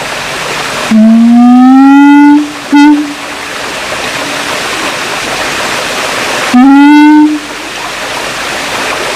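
Siamang calling: a long hoot rising in pitch about a second in, a short hoot just after it, and another rising hoot near the end, with a steady hiss between the calls.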